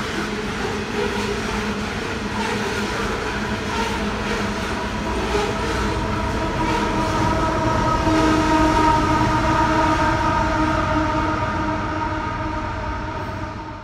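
QR National coal hopper wagons rolling past, steel wheels running on the rails. From about six seconds in, a steady pitched ringing rises over the rumble and peaks a few seconds later. The sound drops away near the end as the last wagons clear.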